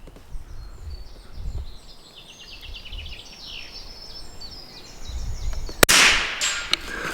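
Small birds chirping in the background, then about six seconds in a single sharp shot from a Norinco JW25A bolt-action .22 LR rifle.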